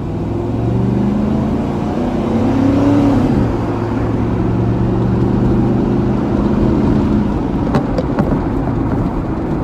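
Pickup truck's engine heard from inside the cab under way: its note climbs for about three seconds as it accelerates, drops sharply at a gear change, then runs steady with road noise.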